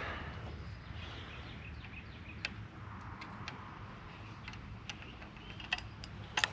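Faint bird chirps over a low steady outdoor background, with a few sharp, irregular clicks, the loudest near the end.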